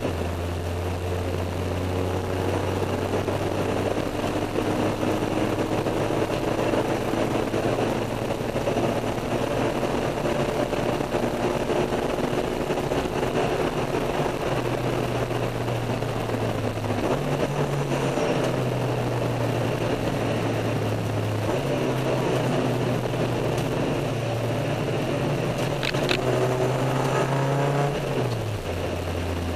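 Honda K20 inline-four engine heard from inside the stripped Civic EG, running at steady, moderate revs under light throttle over steady road and wind noise. Its pitch steps up a little about halfway through and falls near the end as the car slows.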